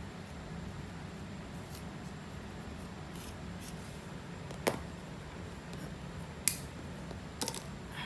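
Fingernails scratching and picking at a scalp thick with dry flakes through coarse hair: a few faint crisp scratches, then three sharp clicks, the last a quick double, over a steady low hum.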